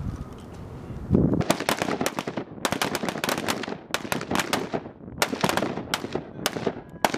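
Rifle fire from several Marines shooting service rifles together on a range. Starting about a second in, many sharp shots come in quick, irregular, overlapping succession, several a second.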